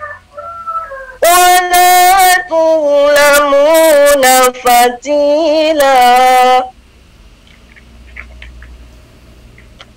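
A female reciter chanting a verse of the Qur'an in melodic tartil style: one loud phrase of long held notes that starts about a second in and breaks off after about five and a half seconds.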